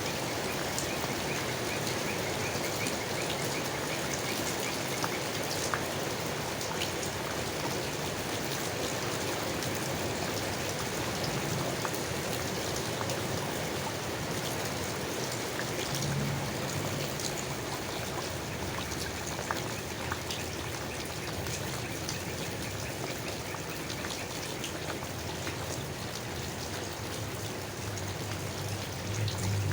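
Steady rain falling on leaves, an even patter with scattered louder single drops striking.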